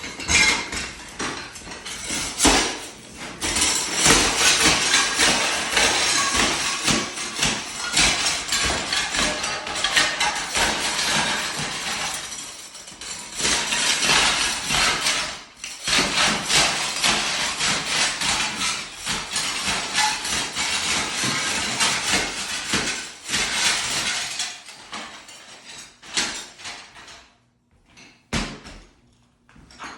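Ceramic floor tile being hammered and broken up: a dense, near-continuous run of rapid impacts and clattering shards, with brief pauses about 3, 12 and 15 seconds in, thinning to scattered clinks in the last few seconds.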